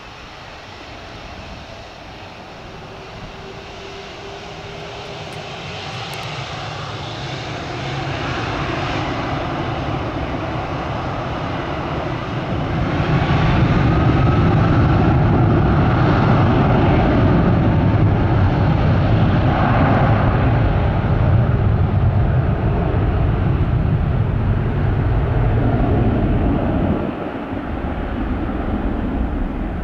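Condor Boeing 757-300's jet engines spooling up to takeoff thrust, building from a rising whine into a loud steady roar as the airliner accelerates down the wet runway, then dropping somewhat near the end.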